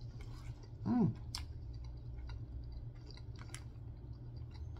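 A person chewing food close to the microphone, with scattered light clicks and a short hummed "mm" about a second in.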